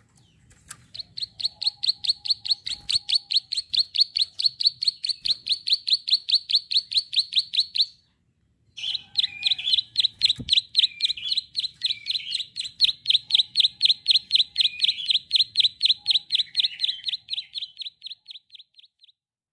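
Female prinia (prenjak sawah) giving its rapid "klik" call: a long run of sharp, high clicking notes, about five a second, with a brief pause near the middle before it starts again.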